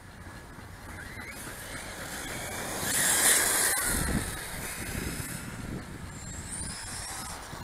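Radio-controlled model cars driving on brick paving. A whine rises in pitch about a second in and again near the end, and a louder hissing rush peaks about three seconds in as a car runs close by.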